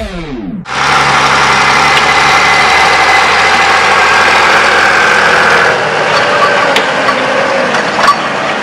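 Ursus 1224 tractor's diesel engine running steadily as it drives past towing two loaded trailers. After about six seconds the engine note drops away and the trailers' clatter and knocks over the road take over.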